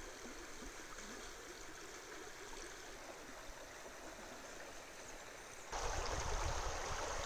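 Shallow stream running over rocks, a steady rushing hiss of water that suddenly grows louder about three-quarters of the way through.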